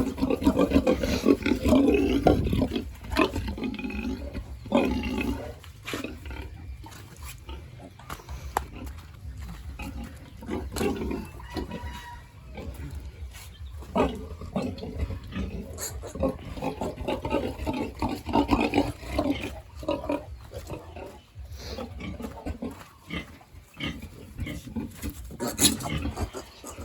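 Pigs grunting, loudest in the first couple of seconds and again about two-thirds of the way through, with scattered short knocks.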